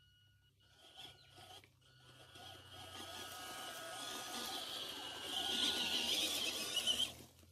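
WPL B24 1/16 RC truck driving through grass: a steady whine from its electric motor and gears, with the tyres and body brushing through the weeds. It grows louder as it nears and cuts off sharply about seven seconds in as it passes.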